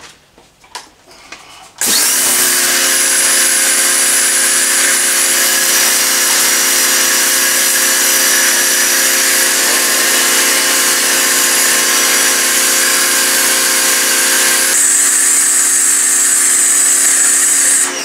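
Ryobi 2000W 2200 PSI electric pressure washer kicking in about two seconds in, its motor and pump humming steadily under a loud hiss of high-pressure spray on concrete. The hiss shifts near the end, and the washer cuts off suddenly as the trigger is released.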